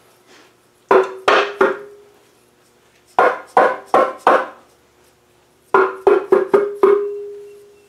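Rubber mallet knocking a metal housing off the back of a Land Rover 2¼-litre petrol engine, where it sits on dowels. The strikes come in three bursts of about three, four and then five sharp knocks, and each blow leaves the metal ringing with a low note that fades after the last one.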